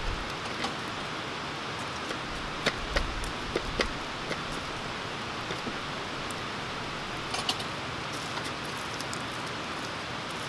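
Wood fire burning in a small box-type twig stove: a steady hiss with scattered sharp crackles and pops at irregular moments.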